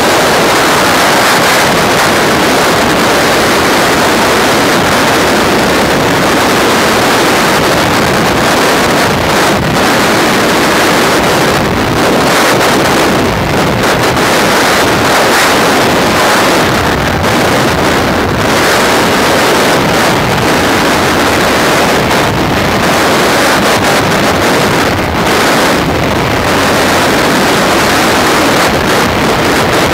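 Loud, steady rush of freefall wind buffeting the camera microphone during a skydive.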